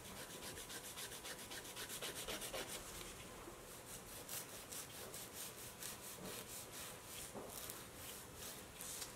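Hand nail file rasping back and forth over a gel nail extension, shaping the tip in quick, even strokes, several a second. Faint.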